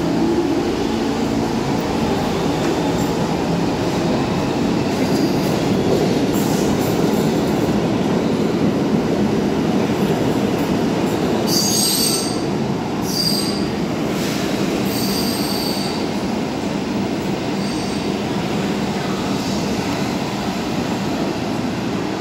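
R46 subway train running along the station platform: a steady rumble of wheels on the rails, with several brief high-pitched wheel squeals about halfway through.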